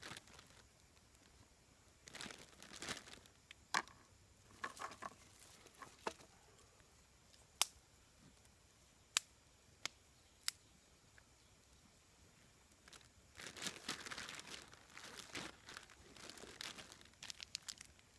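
A plastic bag crinkling and rustling as it is handled, in two spells, with a few single sharp clicks between them.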